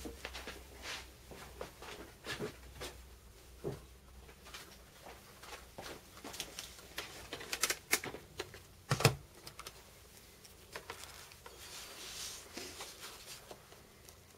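Small metal parts of a battery mod clicking and tapping as they are handled by hand and set down, in irregular light clicks with a cluster of sharper clicks about eight to nine seconds in.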